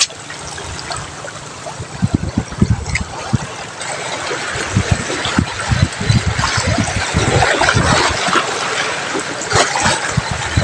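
Sea water washing over a rocky shore, a steady rushing that grows fuller about four seconds in, with wind buffeting the microphone in irregular low thumps.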